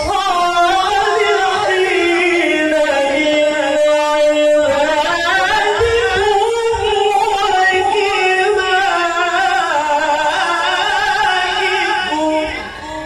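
Male Qur'an reciter chanting a verse in the melodic qiroah style through a microphone: long held, melismatic notes with quick wavering ornaments, the pitch climbing partway through. The phrase ends shortly before the close.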